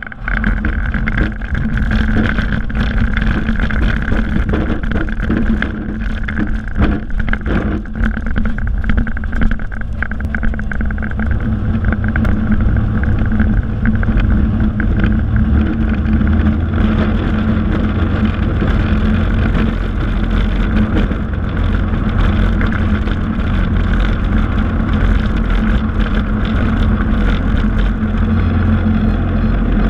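Cessna 182's engine and propeller heard from inside the cockpit, running steadily while the plane rolls over a grass strip. Short rattles and knocks from the airframe bumping over the rough ground come through during roughly the first ten seconds.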